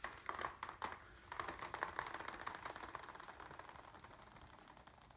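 A few clicks, then a rapid fine crackle that fades away over about three seconds, as the tension is let off the stretched Mylar diaphragm of an electrostatic speaker panel.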